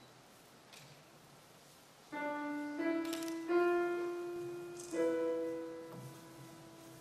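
Piano playing a short phrase of four notes starting about two seconds in, each struck note ringing and fading away.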